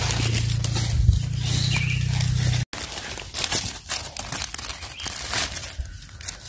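A low steady rumble with a couple of knocks cuts off suddenly about two and a half seconds in. After it, dry leaf litter crackles and rustles in short clicks as a hand picks small bolete mushrooms from among the leaves and trims them with a knife.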